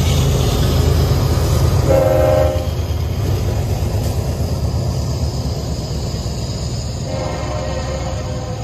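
CN diesel freight locomotives rumbling past at close range, followed by rolling freight cars. The train horn sounds a short blast about two seconds in and a longer one from about seven seconds in.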